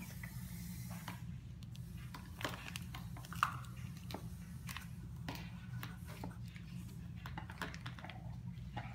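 Scattered light clicks, taps and crinkles of kitchen handling: a plastic measuring cup scooping sugar from a plastic tub, over a steady low hum.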